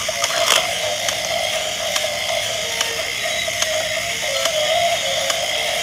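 Small battery-powered gear motor of a walking toy dinosaur whirring steadily with a slightly wavering pitch, with irregular plastic clicks from its gearbox and legs.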